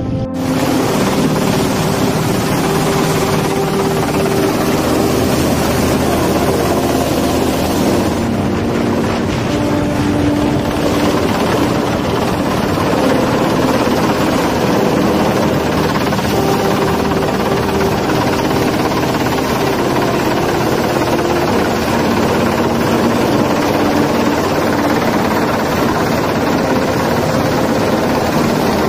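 Loud, steady rotor and turbine noise of a UH-60M Black Hawk rescue helicopter hovering low overhead during a hoist rescue.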